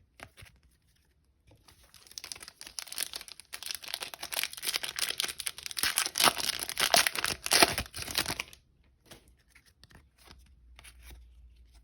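A trading card pack's foil wrapper being torn open and crinkled: a dense crackling that starts about two seconds in, is loudest in the middle and stops shortly after eight seconds, followed by a few faint clicks.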